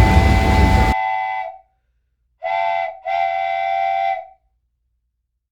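Toy train's whistle sounding, a steady pitched blast, then a short blast and a longer one. A loud rushing noise runs under the first blast and cuts off about a second in.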